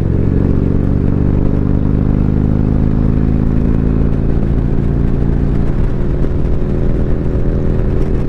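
Motorcycle engine running under way, its note sinking slowly over the first several seconds as it eases off, then holding steady.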